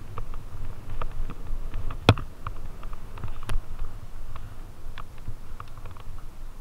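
Fatbike rolling along a dirt trail strewn with dry leaves: a steady low rumble from the fat tyres and the bike's shaking, with scattered clicks and rattles and one sharp knock about two seconds in.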